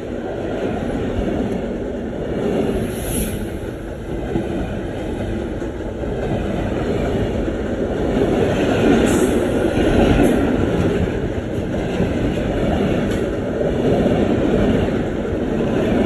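Vietnamese passenger train carriages rolling past right beside the track: a loud, steady rumble of steel wheels on rail that swells a little about halfway through. A few brief high-pitched squeaks come from the running gear.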